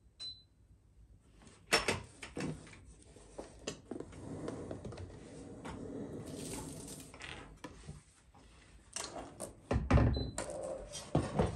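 Kitchen handling sounds: plastic food containers and dishes knocked and shifted on a counter with some rustling, and a heavy pot lid clanking about ten seconds in. Short high beeps from the electric cooktop's touch controls sound just after the start and again about ten seconds in as the cooker is switched on.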